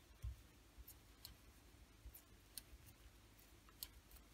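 Faint, irregular clicks and taps of metal knitting needles as stitches are knitted, over near silence.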